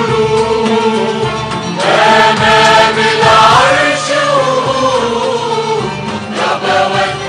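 Choir singing a Christian hymn with sustained, held notes, swelling louder for a couple of seconds about two seconds in.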